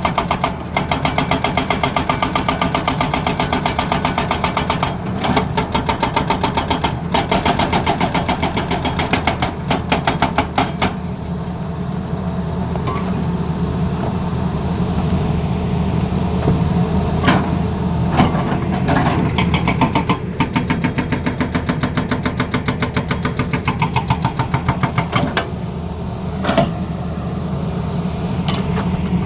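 Excavator-mounted hydraulic breaker hammering in rapid, evenly spaced blows over a running diesel engine. The hammering stops for several seconds midway while the engine keeps running, then starts again.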